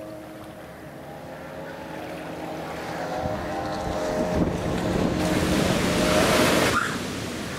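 Sea waves and wind on the microphone, with a steady motor hum underneath. The wind noise builds into a loud rush about five seconds in and cuts off suddenly near the end.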